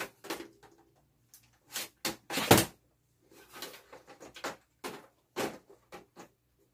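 A run of irregular knocks and clunks from hard cameras being shifted about and picked up off a printer top; the loudest knock comes about two and a half seconds in.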